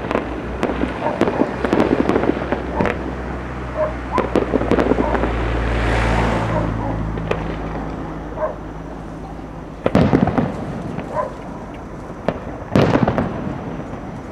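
Fireworks going off: a dense run of sharp bangs and pops, a rushing hiss that swells about six seconds in, and two louder bursts about ten and thirteen seconds in.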